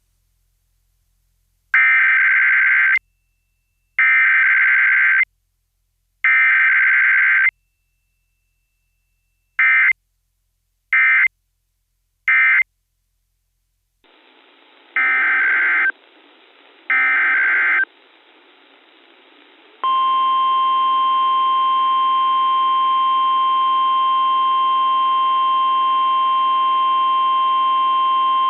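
Emergency Alert System SAME header data bursts: three roughly one-second bursts of raspy two-tone warbling, then three short end-of-message bursts. Then, over a hissy weather-radio signal, two more header bursts, followed by the steady NOAA Weather Radio 1050 Hz warning alarm tone held for about eight seconds.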